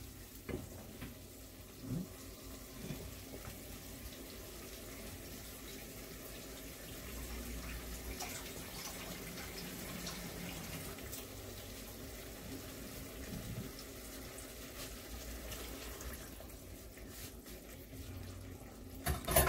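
Kitchen tap running into a sink, a steady stream of water, with a few light knocks in the first few seconds.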